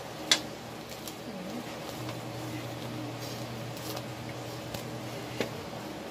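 Thin crepe-like lumpia wrappers being peeled apart and handled, with a sharp click about a third of a second in and a smaller one near the end, over a steady low hum.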